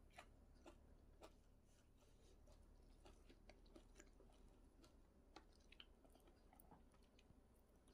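Near silence, with faint, irregular small clicks and crunches scattered throughout, the quiet sounds of eating with chopsticks at a plate.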